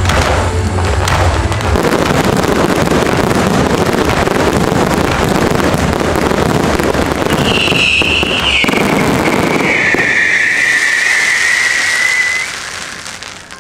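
Fireworks finale barrage: a dense, continuous crackle and rumble of many shells and comets going off together. About eight seconds in a long high whistle slides lower for several seconds, and near the end the barrage dies away.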